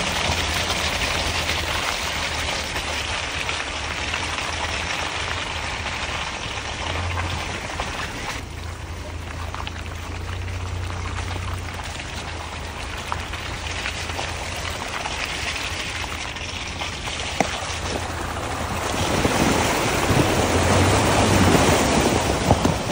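Off-road truck driving slowly along a muddy trail: a low, steady engine hum under the hiss and slosh of its tyres through wet mud and water. It grows louder about nineteen seconds in as the front tyre ploughs through a puddle, with a single sharp knock a little before that.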